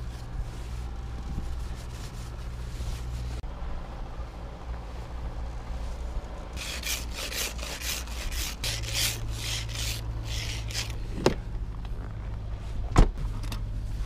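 Snow brush and ice scraper working over a car's snowy, frosted windows: soft brushing first, then a run of quick rasping scrapes, several a second, across the iced windshield about halfway through, and two sharp knocks near the end. A steady low hum of the idling car runs underneath.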